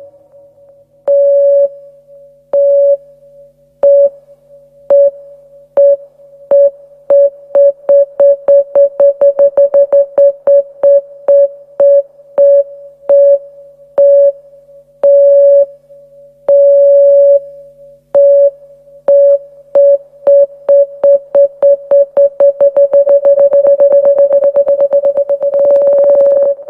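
Trance music build-up: a single synth note stabbed over and over. The repeats speed up, ease off, then speed up again until they run together into one held tone near the end. A faint low pad sits underneath.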